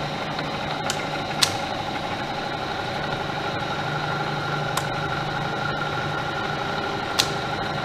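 Bridgeport Series II Special vertical milling machine running, its 2 hp motor and spindle drive giving a steady hum with a few even tones. Three short sharp clicks sound over it.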